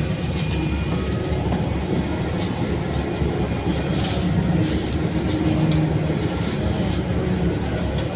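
Inside a moving air-conditioned bus: the engine's steady low rumble and hum, with the body and fittings rattling and a few sharp clicks in the middle.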